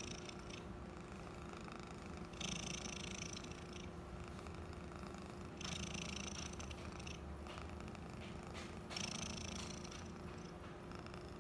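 Domestic cat purring steadily. The purr rises and falls in a regular cycle, with a louder, hissier phase about every three seconds.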